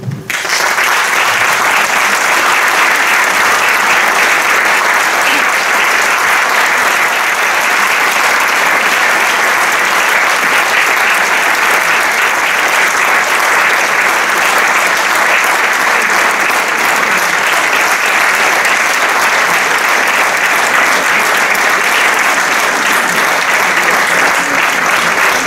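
Audience breaks into applause all at once and keeps clapping at a steady level.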